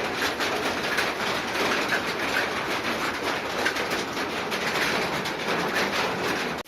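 Steady rain: a dense patter of drops with the trickle of running rainwater.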